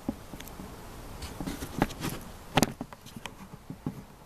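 Footsteps through dry leaf litter: irregular rustling and crunching with a few sharp crackles, the sharpest about two and a half seconds in.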